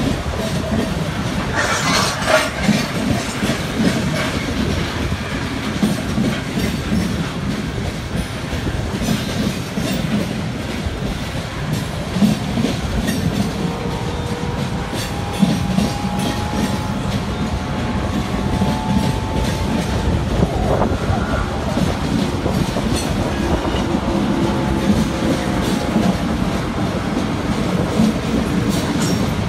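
Long freight train of open-top hopper cars passing close by: steady rumble and clickety-clack of the wheels over the rail joints, with a louder clank about two seconds in. Thin wheel squeals ring faintly through the middle stretch.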